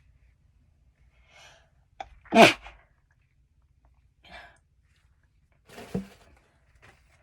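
A person sneezing: a short breath in, then one sharp, loud sneeze about two and a half seconds in. A quieter second burst of breath follows about six seconds in.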